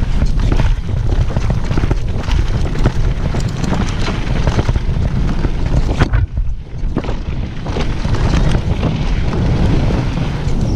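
Wind rushing over a rider-mounted camera's microphone at downhill mountain-biking speed, with a constant rattle and clatter of sharp knocks from the bike and tyres over rough dirt trail. About six seconds in the clatter drops away for roughly a second before resuming.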